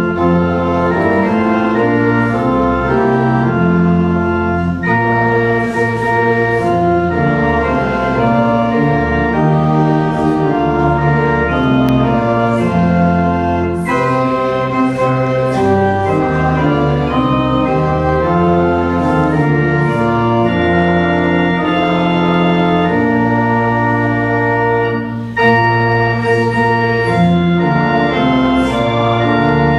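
Church pipe organ playing sustained full chords that change about once a second, with a short break and a fresh attack about 25 seconds in.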